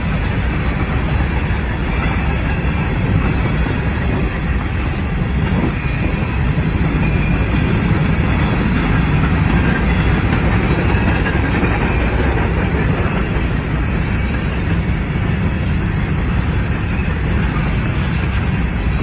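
Freight grain train rolling past, with a steady, loud rumble of wheels on rail that continues throughout.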